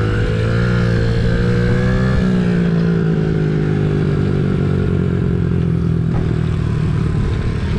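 Small-displacement minibike engine running at part throttle and easing off as the bike slows, its pitch dropping a little about two seconds in.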